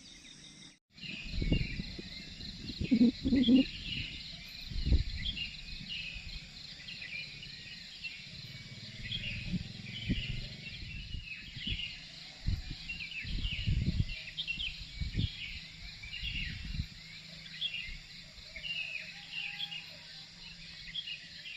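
Many small birds chirping and calling continuously. Under them run irregular low rumbles and thumps, loudest two to four seconds in and again later on.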